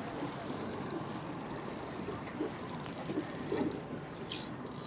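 Steady wind and water noise on an open fishing boat, with a brief click about four seconds in.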